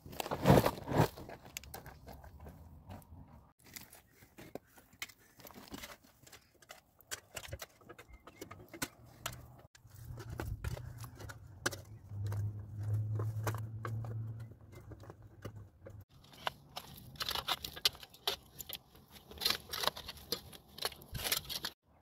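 Loose soil and small stones crunching and scraping under hands as earth is spread over a stone floor, in short irregular bursts, loudest about half a second in.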